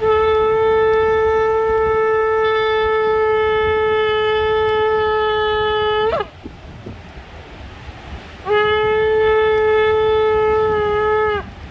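A shofar blown in two long blasts: a steady note held for about six seconds that breaks upward as it ends, then after a short pause a second blast of about three seconds.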